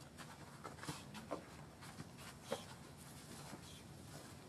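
Faint steady background hiss with a handful of soft, short clicks scattered through it.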